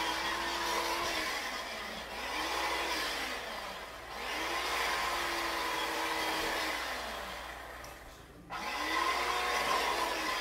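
Electric carving knife running as it slices through roast turkey breast. Its motor buzz rises and falls in pitch with each stroke through the meat, and it cuts out for a moment about eight and a half seconds in, then starts again.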